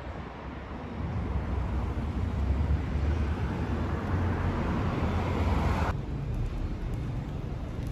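Wind rushing over the phone's microphone and street noise while riding an electric scooter along a city street, with a deep rumble under it. The sound swells for a few seconds and then changes abruptly about six seconds in.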